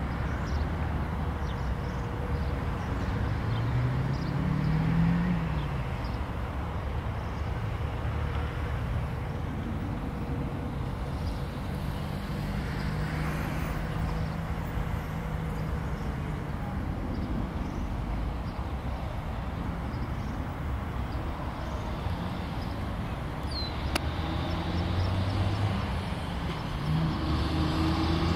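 Steady rumble and low hum of a passenger train hauled by class 6E1 electric locomotives pulling away in the distance, mixed with road traffic noise. A brief tone rises and falls about four to five seconds in.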